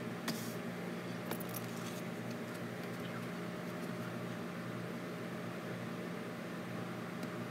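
Steady hum and hiss of room noise, with a few faint clicks and rustles near the start as Polaroid photos are handled.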